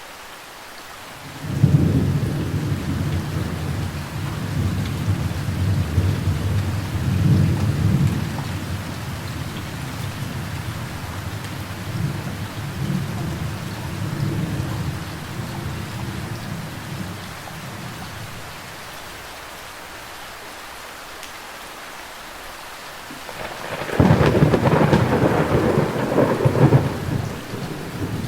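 Steady rain with thunder: a long low rumble starts suddenly about a second and a half in, swells several times and fades away over some fifteen seconds, then a second, louder thunderclap breaks near the end.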